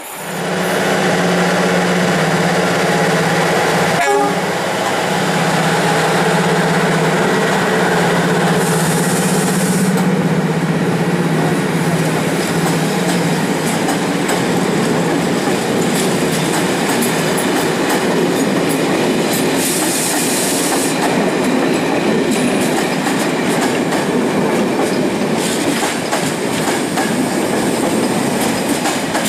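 A long passenger train rolling past at close range, its coaches' wheels clattering over the rails in a steady rumble. A steady low hum carries through roughly the first half and fades out, with a single knock about 4 s in and brief high hissing squeals twice.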